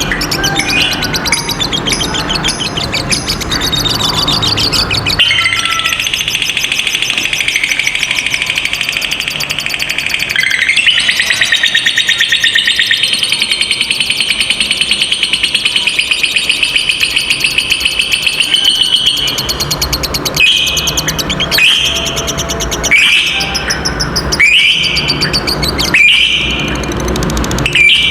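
Lovebirds chattering: a long, fast, unbroken trill, the prized long 'ngekek' chatter, that runs about fourteen seconds. It is followed by a string of short, shrill calls, one every second or so, near the end.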